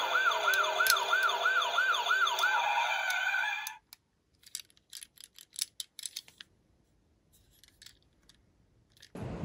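Emergency-vehicle siren, its pitch sweeping rapidly up and down about three times a second over other siren tones, cutting off suddenly a little under four seconds in. Faint clicks follow as a small die-cast toy ambulance is handled.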